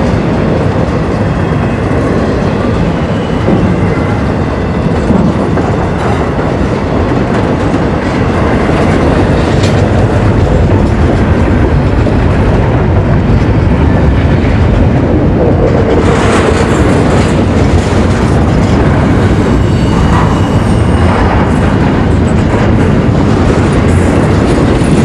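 A train passing, the steady noise of its wheels and cars running on the rails, growing louder about nine seconds in.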